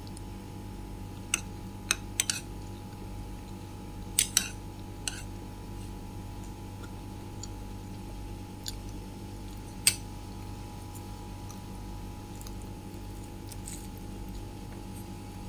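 A few short, sharp clicks and taps, bunched in the first five seconds with one more about ten seconds in, over a steady low electrical hum.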